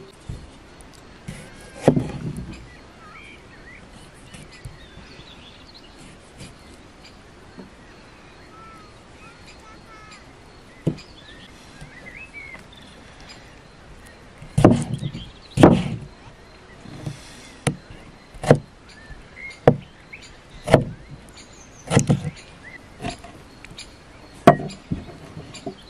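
Kitchen knife chopping tomatoes on a thick wooden log-slice board: one knock about two seconds in, a quiet stretch with faint chirping, then about ten sharp chops roughly once a second through the second half.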